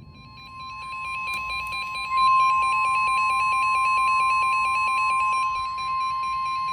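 NOAA Weather Radio warning alarm: a steady, loud 1050 Hz tone sounding with a second electronic alarm tone that flips rapidly back and forth between pitches. It grows louder over the first couple of seconds, then holds steady. It signals that a warning message is about to be broadcast.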